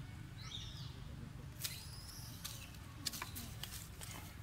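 Dry leaves and twigs crackling in sharp scattered clicks, two louder snaps among them, as baby macaques scramble and forage in leaf litter. A short high squeak that rises and falls comes about half a second in, over a steady low rumble.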